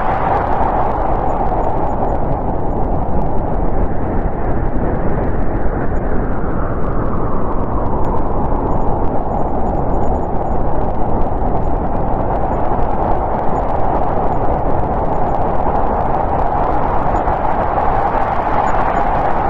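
Winter storm wind blowing steadily, a hollow howl that eases off a few seconds in and swells again near the end.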